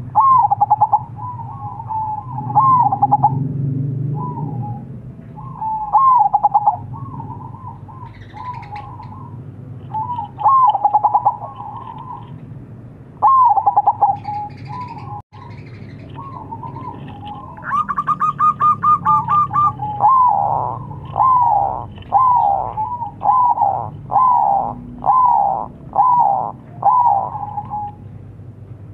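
Zebra dove (perkutut) cooing: repeated phrases of rolling, bubbling coos. Near the end comes a quick run of about ten falling notes, a bit over one a second, and about two-thirds through there is a brief, higher buzzy call.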